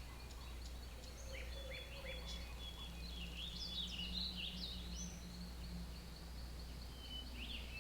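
Small birds chirping in many short calls that slide up and down in pitch, over a steady low hum.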